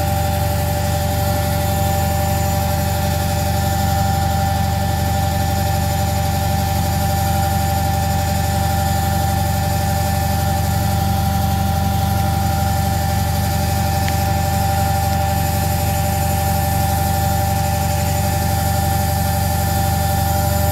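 Beko washing machine running steadily, its motor and drum giving a constant low hum with a steady higher whine over it.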